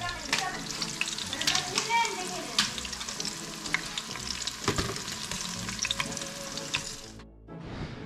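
Battered cicadas frying in shallow hot oil in a pan, a steady sizzle with sharp crackles and pops throughout. The sizzle cuts off abruptly about seven seconds in.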